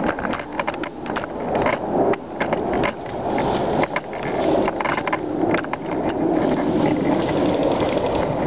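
Continuous scraping, rubbing handling noise from the camera's tripod as it is carried and moved, broken by many irregular clicks and knocks. The uploader names the tripod as the source of this noise.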